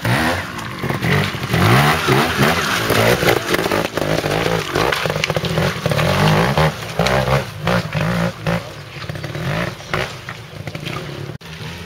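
Trials motorcycle engine revving in short, repeated bursts of throttle as the bike climbs over rocks, with clatter and scraping from the bike on the stones.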